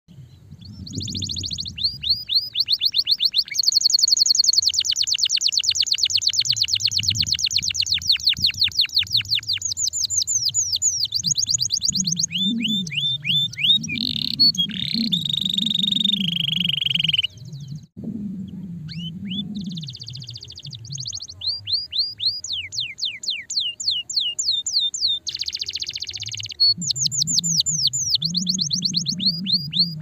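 Domestic canary singing a long, loud song of rapid trills: runs of quick, evenly repeated downward-sweeping whistled notes mixed with buzzy rolls. The song breaks off briefly about halfway through, then starts again.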